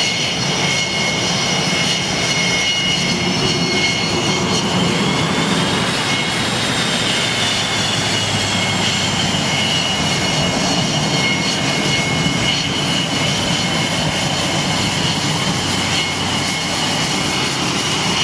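F/A-18 Hornet twin jet engines running at low power on a carrier flight deck: a loud, steady jet whine with high turbine tones. One of the tones rises and falls partway through.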